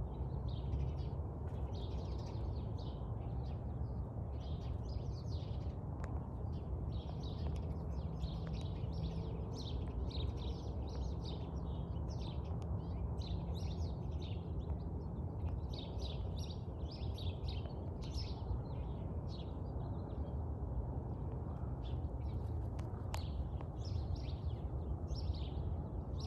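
Small birds chirping in a quick, continuous run of short high calls over a steady low rumble.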